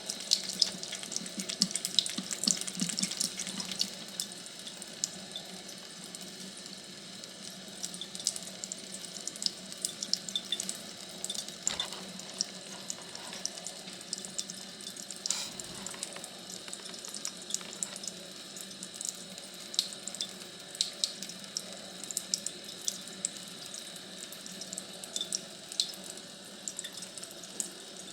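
Water running steadily, with many small sharp splashing ticks, busiest in the first few seconds.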